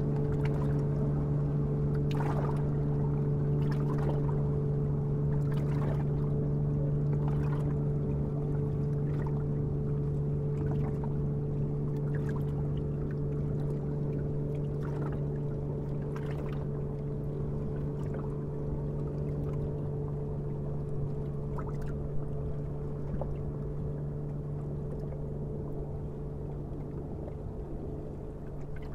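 A boat engine on the canal running with a steady low hum that slowly fades away. Water splashes at irregular intervals, mostly in the first half.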